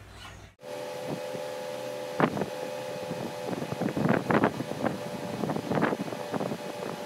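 Outdoor ambience picked up by a phone microphone: a steady hum with irregular gusts of wind noise on the microphone.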